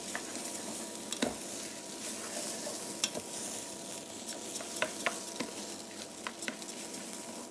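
Risotto rice toasting in butter with onion, garlic and mushrooms, sizzling steadily in a stainless steel pot while it is stirred with a wooden spoon. Scattered light taps and scrapes of the spoon against the pot.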